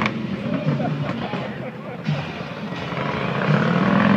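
Motorcycle engine running and revving, its note growing louder near the end, over crowd voices.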